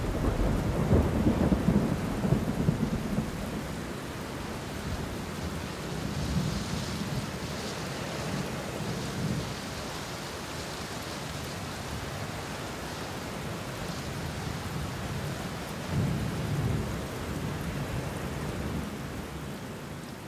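Thunderstorm: steady rain with rolling thunder, the rumbles loudest in the first few seconds and again about 16 seconds in.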